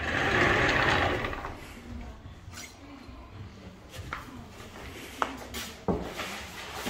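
A rush of air from a banner welding machine for about a second and a half, then several sharp clicks and knocks as the machine is handled and adjusted.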